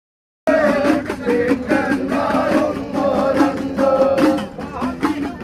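Devotional singing with instrumental backing and a beat, the sung lines held and bending in pitch, starting abruptly about half a second in.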